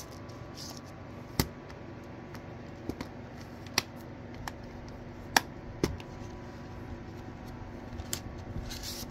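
A plastic 4K Blu-ray case being handled: a string of sharp clicks and taps as the case snaps shut and is slid into its cardboard slipcover, over a steady background hum.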